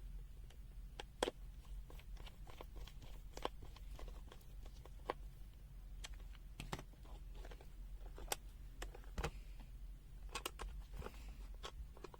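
Faint, irregular clicks and taps of a plastic multimeter being handled.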